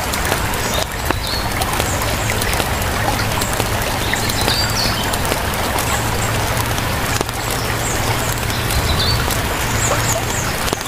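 Nature ambience: short, scattered bird chirps over a steady rushing wash of noise, with a low hum underneath.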